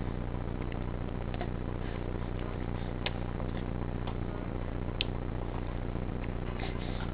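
Steady low background hum and hiss, with a few faint clicks about three, four and five seconds in.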